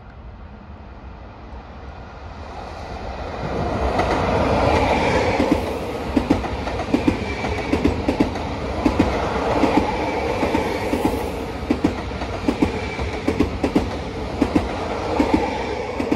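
Electric commuter train running through a station without stopping. A rising rush of wheels and motors swells as it draws near, then a long run of regular wheel clicks over the rail joints follows as the cars go past.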